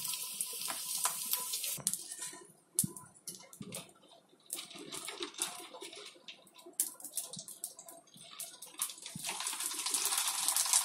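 Hot oil sizzling in a kadhai as dried kurdai crisps fry, the hiss dying down after about two seconds. A few light clicks and knocks of handling follow in the middle. The sizzle rises again near the end as another kurdai goes into the oil.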